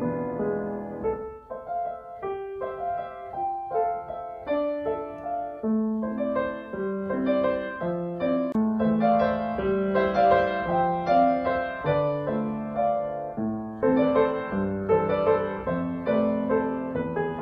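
Background piano music: a gentle melody of sustained notes over chords.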